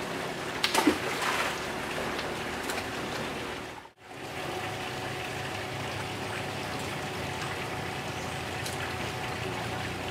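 Steady rush of water with a faint hum underneath, broken by a brief dropout about four seconds in.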